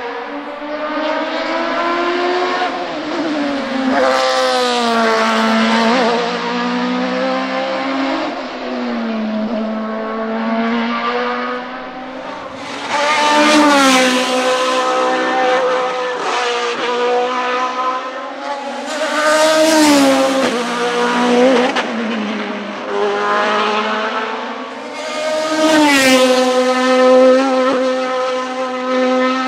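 Hillclimb sports-prototype race car engine at high revs, its pitch climbing and dropping again and again through gear changes. It is loudest in three surges about 14, 20 and 26 seconds in.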